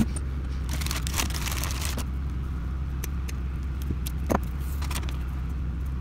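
A steady low mechanical hum, with rustling about a second in and a few small metallic clicks as bolt-tightened hose clamps and rubber fuel line are handled.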